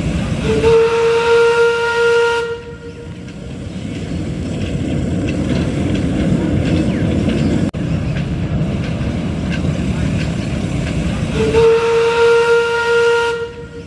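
A 1907 Fowler 0-6-2T steam locomotive's whistle blows two blasts of about two seconds each, one near the start and one near the end, each on a single steady pitch. Between them the locomotive runs along the track with a continuous rushing noise.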